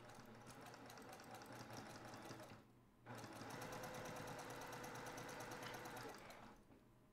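Electric sewing machine stitching a quarter-inch seam through layered quilting fabric with rapid, even needle strokes. It pauses briefly about two and a half seconds in, starts again, and stops a little after six seconds.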